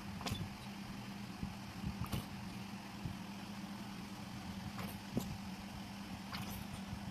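A steady low machine hum, like an idling engine, with a few scattered short clicks and taps.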